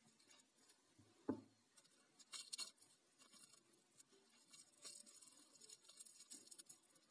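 Faint crinkling and rustling of thin clear plastic film handled between fingertips, in a few short bursts, with one soft knock about a second in.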